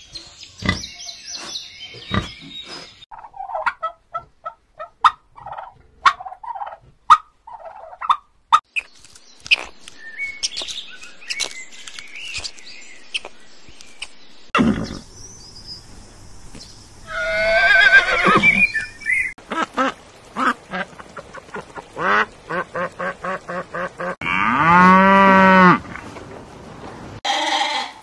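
A string of different animal calls cut one after another. Piglets squeal at the start, followed by several seconds of short chirps and clicks. Halfway through comes a long wavering horse whinny that falls in pitch, then a quick run of short pulses, and a cow's long low moo that rises and falls. Sheep start bleating right at the end.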